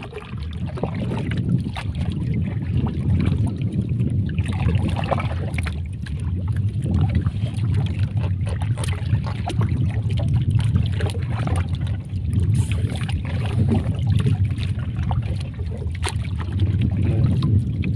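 Fishing longline being hauled in by hand over the side of a small boat: scattered clicks, knocks and splashes of the wet line and hooks over a steady low rumble.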